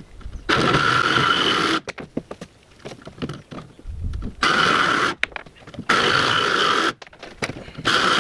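Electric jigsaw cutting stringer notches into a plywood bulkhead, running in short bursts of about a second with brief pauses between cuts.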